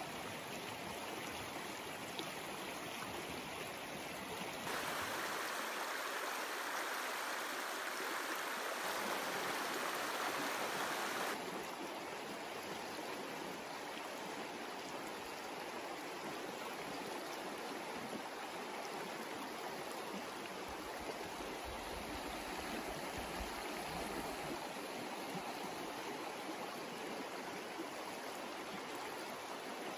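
A shallow, rocky river rushing and burbling over stones in a steady wash of water noise. For several seconds near the start it runs louder and brighter, then drops back abruptly.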